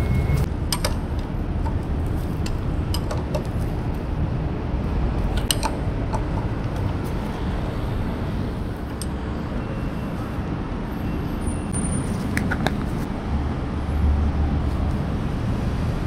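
Steady low outdoor rumble like distant traffic, with scattered light metallic clicks and taps from hand tools being handled at the motorcycle's front brake caliper.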